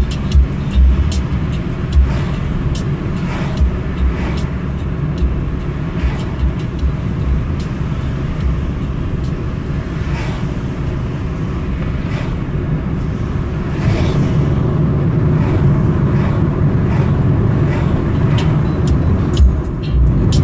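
A car driving on the road: a steady low rumble of engine and tyres, with frequent short knocks and clicks, growing louder about two-thirds of the way through.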